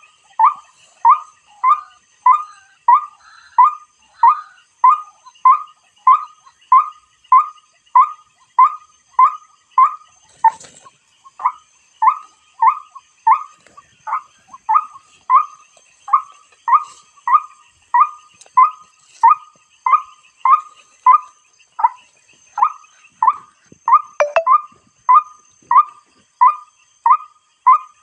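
White-breasted waterhen (ruak-ruak) calling at night: a steady series of short, rising 'kwak' notes, about two a second, with brief breaks twice.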